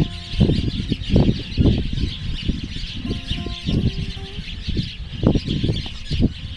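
A flock of welcome swallows twittering, a steady high chatter, with gusts of wind buffeting the microphone.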